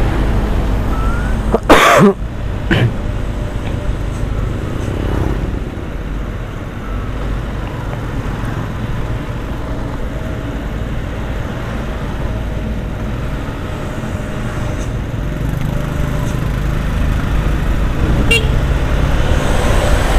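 Motorcycle running at road speed, with engine rumble and wind and road noise on an action camera. A loud sharp knock about two seconds in and a smaller one just after. Near the end the sound grows louder as the motorcycle comes alongside a truck.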